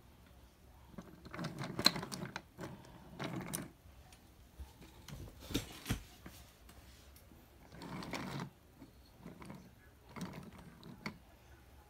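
Wooden toy train engine and cart pushed by hand along wooden track, the wheels rattling on the track in several short runs of about a second each.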